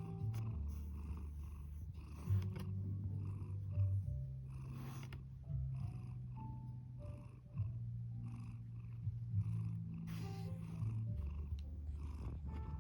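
Domestic cat purring continuously, its low rumble changing character every second or two as the cat breathes in and out.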